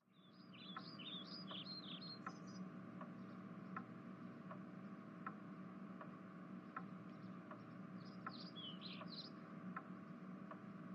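Faint bird-like chirps in two short flurries, one near the start and one about eight seconds in, over a steady ticking a little faster than once a second and a low hum.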